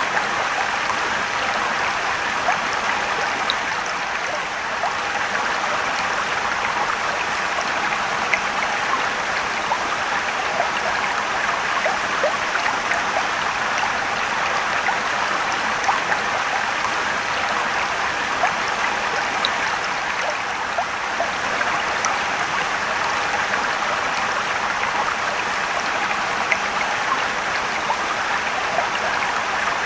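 Mountain stream and waterfall: a steady rush of flowing water with small splashes and trickles.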